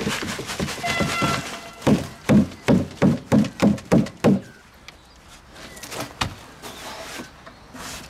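Black plastic tub being banged to knock wet concrete out of it: scraping and clatter, then a run of about seven dull thumps, roughly three a second, followed by quieter scraping.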